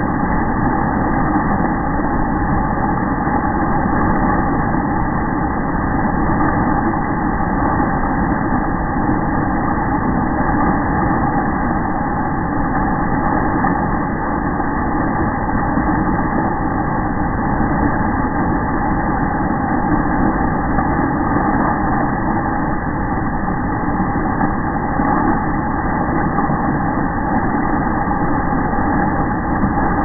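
Waterfall pouring and splashing onto rocks close to the microphone: a loud, steady rush of water.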